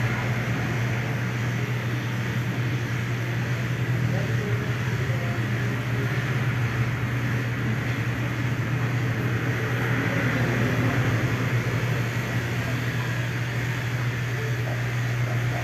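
Corded electric dog clippers running steadily, a constant low hum with a buzz, as they are worked through a chow chow's thick coat.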